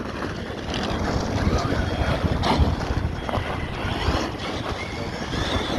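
Wind buffeting the microphone over the running of RC trucks on dirt, with a short knock about two and a half seconds in.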